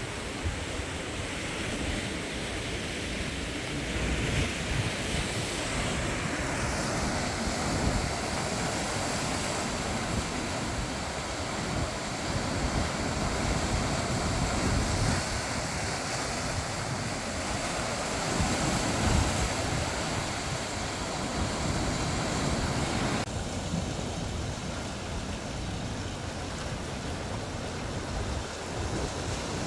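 Sea waves washing and breaking, swelling and easing every few seconds, with wind buffeting the microphone.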